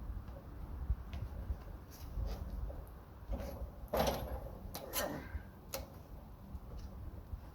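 A few sharp wooden and metal knocks and clunks over a low rumble, the loudest about four seconds in, with a short scraping slide around five seconds. These are the sounds of a log being worked by hand on a manual Wood-Mizer LT15 Go sawmill.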